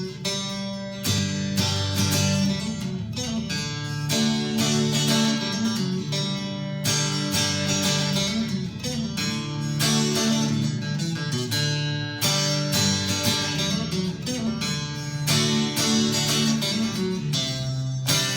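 Fender Telecaster electric guitar played with a clean tone on the neck pickup, strumming and picking a run of chords.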